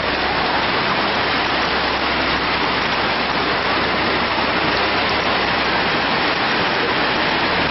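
Heavy rain pouring down onto a flooded street, with runoff water rushing across it: a steady, dense hiss. A low rumble underneath fades out about five seconds in.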